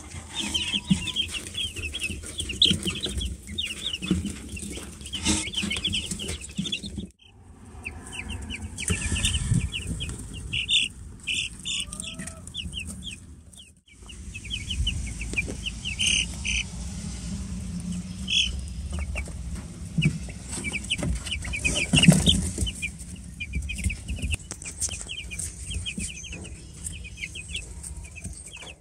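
A brood of day-old meat chicks peeping, many short high cheeps overlapping in a constant chatter, briefly cutting out twice.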